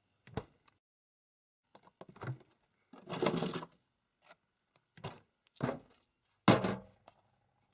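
A series of separate knocks, thumps and rustles from objects being handled. The loudest is a sharp knock about six and a half seconds in, and a longer rustle comes about three seconds in.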